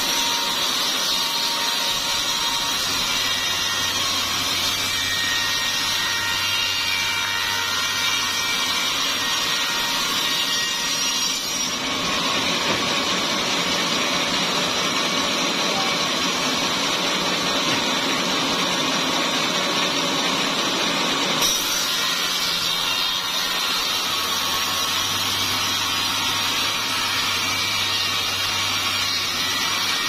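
Sawmill saw cutting small-leaf acacia wood into boards: a continuous, steady, high hissing whine of blade through timber. A lower hum joins in twice.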